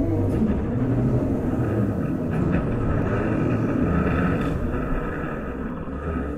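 Large hanging frame drum worked with a stick, giving a dense low rumble with a faint ringing overtone above it. The rumble fades away near the end.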